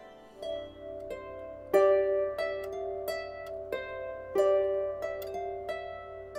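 Harp music played on a Dusty Strings Ravenna 34 lever harp: a slow melody of plucked notes, evenly paced at about one every two-thirds of a second, each left ringing into the next.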